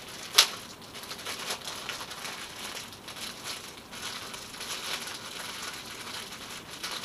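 Plastic wrapping crinkling and rustling as a fishing rod is unwrapped, with one sharp click about half a second in.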